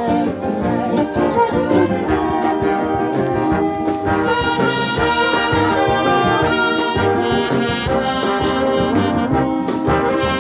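Concert band playing a tune: brass and woodwinds, with flute and saxophones, sounding together in sustained, changing notes.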